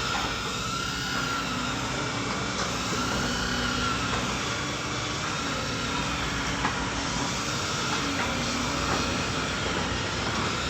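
Excavator's diesel engine running steadily under load, with a hydraulic whine that rises and falls in pitch as the arm and bucket move, and a few faint clicks.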